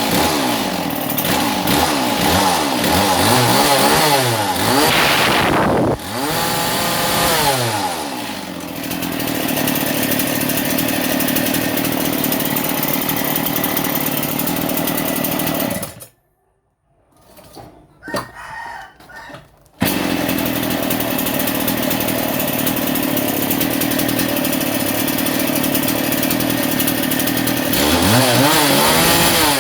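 Shindaiwa concrete cut-off saw's two-stroke engine being revved up and down several times, then running steadily. It drops out for a few seconds in the middle, then comes back running steadily and revs again near the end.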